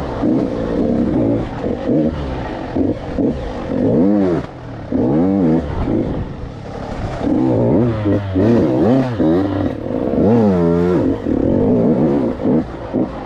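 KTM 85 two-stroke dirt bike engine revving up and down over and over as the throttle is worked on and off along a tight trail, its pitch climbing and dropping in quick sweeps, with one big rev near the end.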